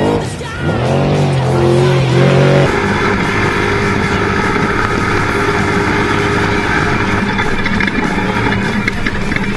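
Off-road trophy truck racing. For the first few seconds its engine revs up and down as it slides past, mixed with music. Then, heard from inside the cab, the engine runs steadily at speed under a constant din of road and chassis noise.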